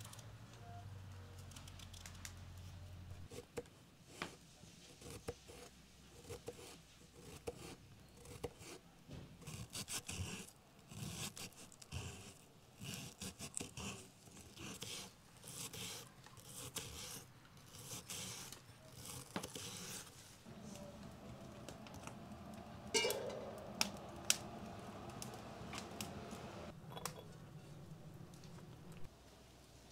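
Kitchen knife cutting a peeled onion on a wooden cutting board: a long run of quick slicing strokes, each ending in a light knock of the blade on the wood. Near the end come a few sharper, louder clicks.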